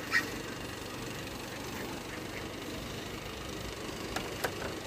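Steady low hum of Carniolan honeybees over an open hive, with a light click near the start and two faint clicks near the end.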